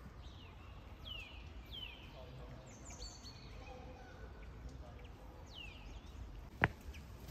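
Small birds calling: a scattering of short chirps, each falling in pitch, over a low steady outdoor background. One sharp click near the end.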